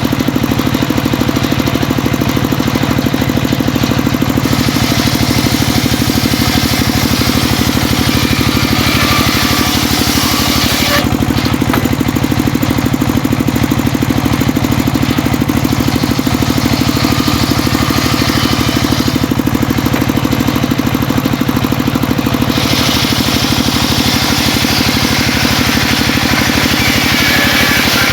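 Homemade circular saw driven by an engine running steadily, its blade cutting through mahogany in stretches. A harsher, higher cutting noise rises over the engine a few seconds in, more lightly in the middle, and again near the end.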